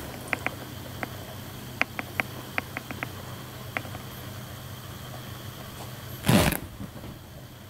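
A dozen light, sharp clicks and taps in the first four seconds, then one loud scuffing thump a little after six seconds in, over a low steady hum.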